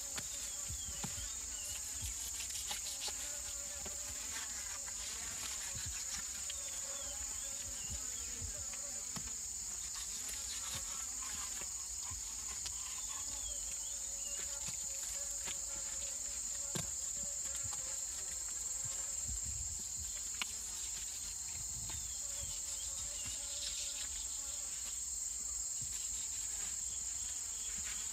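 Forest insects: a steady high-pitched insect drone, with lower buzzing that wavers up and down in pitch over it and a few faint clicks.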